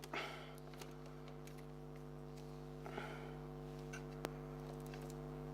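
Steady electrical hum with a few faint clicks and taps, one near the start, one about 3 seconds in and one near 4 seconds in, from handling the compressor's wiring and plastic parts during the teardown.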